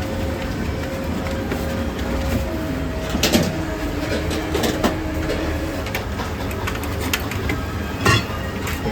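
Ramen stall kitchen work: scattered clinks and knocks of bowls and utensils over a steady low rumble and hiss, with a sharper knock about three seconds in and another near the end.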